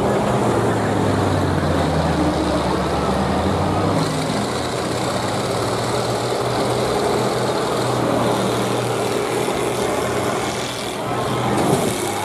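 Heavy engines of combine harvesters running in the derby arena, a steady low engine drone that swells briefly near the end.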